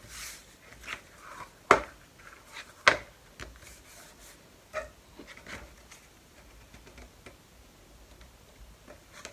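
Hands rubbing and pressing paper strips flat onto grey cardboard on a cutting mat, with soft paper rustles and scrapes. Two sharp knocks about a second apart, around two seconds in, are the loudest sounds.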